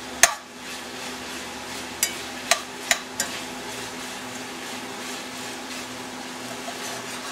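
Crumbled Italian sausage sizzling as it browns in a stainless steel pan. A metal slotted spoon stirs it, with several sharp clinks against the pan in the first few seconds.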